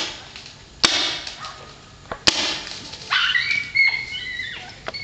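A paintball marker fires twice, sharp cracks about a second and a little over two seconds in. From about three seconds a dog gives high, wavering whines and yips.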